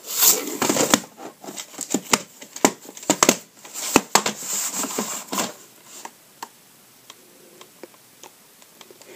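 VHS tape cases, a plastic clamshell and cardboard sleeves, being picked up and turned over by hand: a quick run of clicks, knocks and rustles for the first five seconds or so, then only a few faint ticks.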